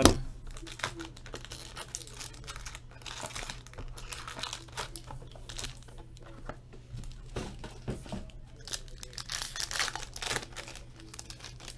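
A cardboard trading-card box and its insert being handled, with small taps and rustles, then a foil card pack crinkling and tearing open about nine seconds in.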